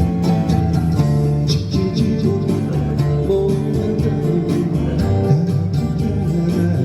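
Live band music with guitar playing over a steady beat, in an instrumental stretch with no clear lead vocal.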